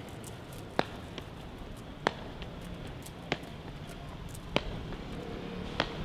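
A sharp tick repeating at an even pace, five times, about one every second and a quarter, over a steady background hum.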